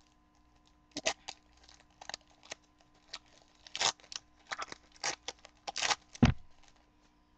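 A trading-card pack wrapper being torn open and crinkled by hand: a run of short crackles and rips, with one thump about six seconds in, the loudest sound.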